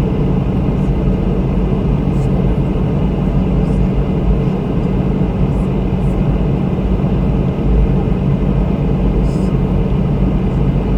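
Steady in-flight drone of a Boeing 717, its rear-mounted Rolls-Royce BR715 turbofans and airflow making an even roar with a constant low hum.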